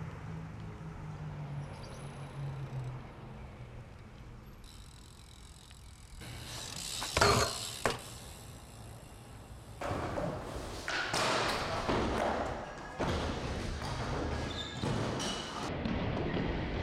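BMX bike tyres rolling on concrete, with two sharp knocks about a second apart as the bike hits and leaves a concrete ledge, then more rolling noise and scattered knocks.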